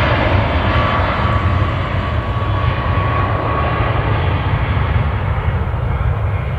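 Boeing 737-8 MAX's CFM LEAP-1B jet engines at takeoff thrust: a loud, steady jet rumble with a faint whine through it.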